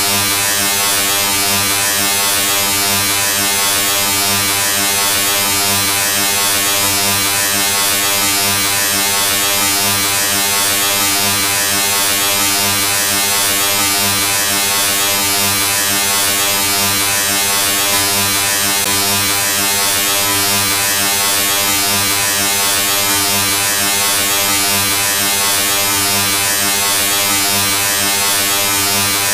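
A steady, unbroken electric buzz: a low hum with many overtones and a hiss above it, the same level throughout.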